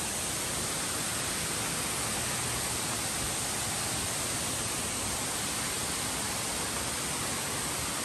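Steady rush of water from a cascading waterfall, an even hiss with no break or change.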